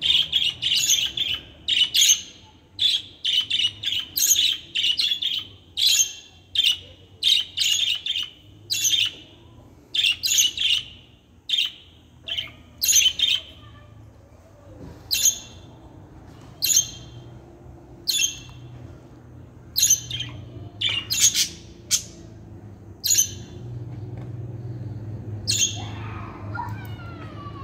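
Budgerigars chirping and squawking in short, sharp calls, crowded together at first and then coming singly about once a second.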